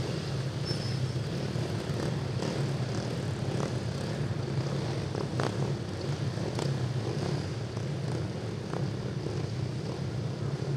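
A steady, low engine drone, with a few faint clicks and taps on top.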